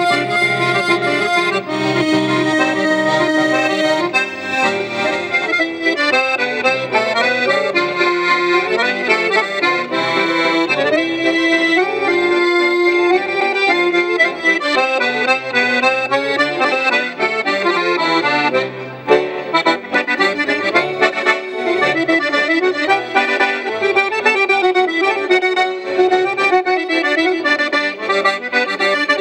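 Two chromatic button accordions, a Hohner and a Piermaria, playing a tune together as a duet, with melody over held chords and no break.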